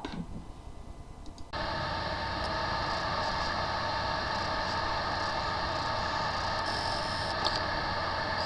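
Steady whirring machine noise with a low hum, starting abruptly about one and a half seconds in.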